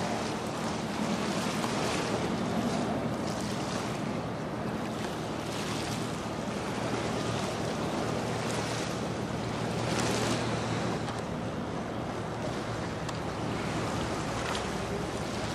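Wind on the microphone over water lapping, with a boat engine's steady low hum underneath.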